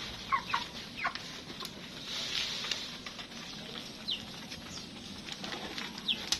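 A flock of chickens clucking softly while they peck at feed, with short calls scattered throughout and a few high, sliding chirps.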